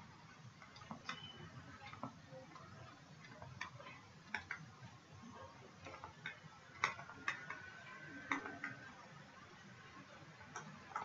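Faint, irregular taps and clicks of a stylus writing on a tablet, over a low hiss.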